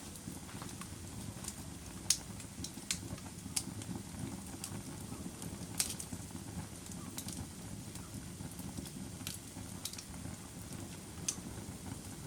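Wood fire crackling in a fireplace: a steady low rush of burning with irregular sharp pops and snaps, the loudest about two seconds in and again just before six seconds.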